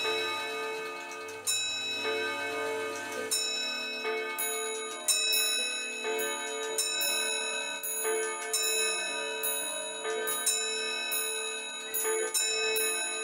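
Bell-like chiming notes in a slow melody. Each struck note rings on and fades, with a new one every second or so over held tones.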